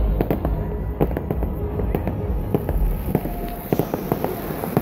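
Fireworks display going off, fountains and aerial bursts: a rapid, irregular run of sharp pops and crackles over a low rumble.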